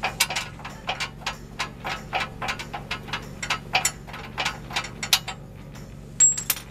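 Rapid, uneven metallic clicking, about four or five clicks a second, from the torsion bar key and unloading tool hardware being worked under the truck: the key rattling loose, a sign that the torsion bar's load is now on the unloading tool. A brief high squeak near the end.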